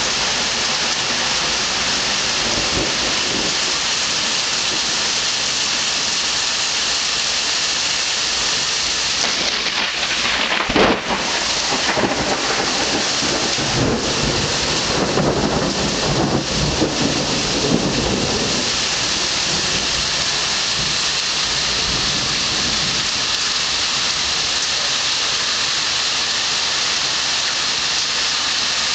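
Heavy rain hissing steadily, with an air conditioner unit humming. About ten seconds in, a close lightning strike gives one sharp thunder crack, followed by several seconds of rolling rumble.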